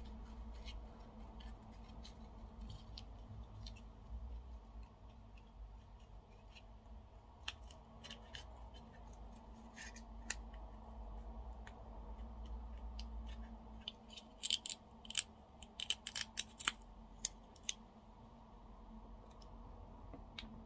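Knife blade scraping and clicking against the edge of a freshwater pearl mussel's shell as it is worked along the seam to pry the shell open. Faint scattered ticks, with a run of sharper clicks about three-quarters of the way through.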